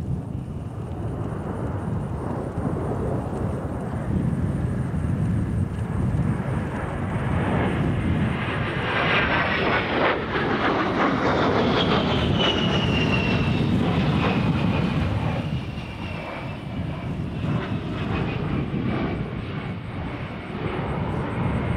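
A-10 Thunderbolt II's two TF34 turbofan engines on a low pass: a jet rush that builds to its loudest about halfway through, with a high whine falling in pitch as the aircraft goes by, then easing off.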